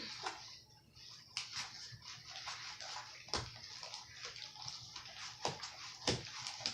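Homemade shaving-cream slime being kneaded by hand, squelching wetly with irregular sticky pops.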